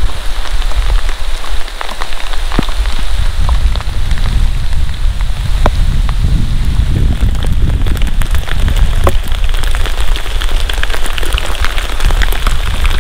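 Heavy rain falling, with many sharp ticks of single drops striking close by, over a steady low rumble.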